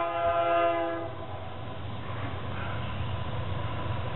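Distant diesel locomotive air horn sounding a chord of several notes, held for about a second and then cut off. A steady low rumble of the approaching train follows.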